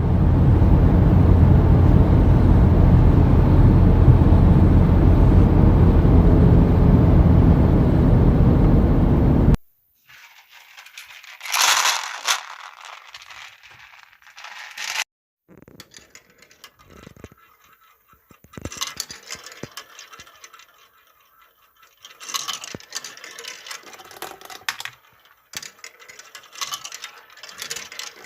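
Marbles on a wooden marble run: for the first nine seconds or so a loud, continuous rumble of many marbles rolling together, which cuts off suddenly, then scattered clicks, rattles and short rolling runs as single marbles knock along the wooden track pieces.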